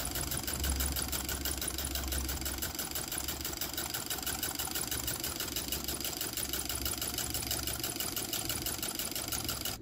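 Homemade tin-can Stirling engine running steadily on concentrated sunlight, its piston and flywheel linkage making a fast, even clatter of many strokes a second.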